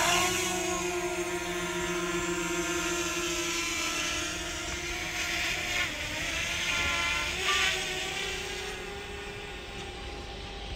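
DJI Mavic Mini quadcopter's propeller motors whining at takeoff, having just spun up, then holding a steady pitch as the drone climbs. The sound grows quieter over the last few seconds as it gains height.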